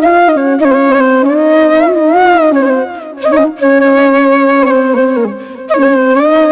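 Solo flute music playing a slow melody with bending, gliding notes, pausing briefly twice.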